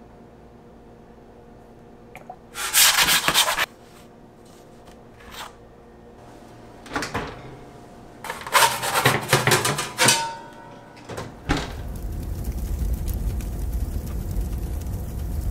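Home oven being loaded with a pizza: two loud stretches of clatter and scraping from the oven door and rack, with a few smaller knocks between them. From about three-quarters of the way through, a steady low rumble.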